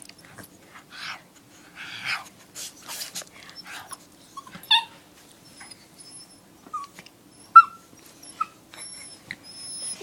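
Pet dog making short breathy, wheezy snorts, then a few brief high squeaks, the loudest about seven and a half seconds in.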